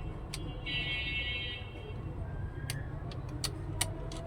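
A buzzing tone lasting about a second, followed by a few sharp clicks, over a low steady hum.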